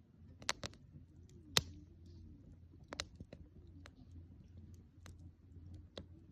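Wood fire crackling: irregular sharp pops and snaps, the loudest about a second and a half in, over a low steady rumble of the burning fire.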